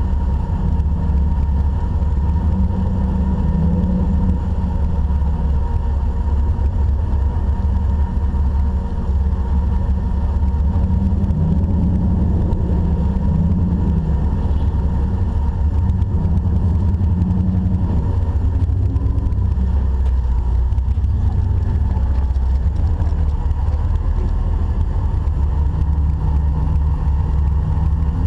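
Off-road Jeep's engine running at low revs with a deep, steady rumble, its note rising and easing slightly at times.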